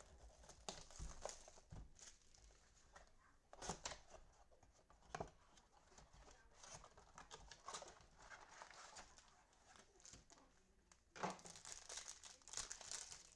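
Faint crinkling and tearing of foil trading card pack wrappers, with scattered soft clicks of cards being handled; a louder stretch of crinkling comes near the end.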